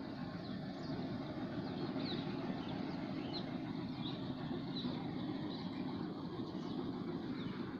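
Steady low rumble of distant road traffic, with small birds chirping: many short, high calls scattered throughout.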